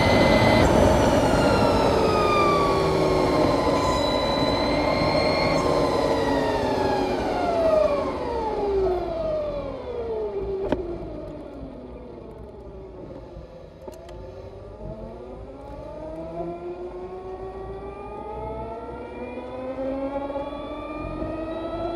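2020 Harley-Davidson LiveWire's electric drivetrain whining, falling steadily in pitch as the bike slows almost to a stop, then rising again as it accelerates away. Wind rush on the helmet-mounted microphone is heavy at first and fades as the speed drops.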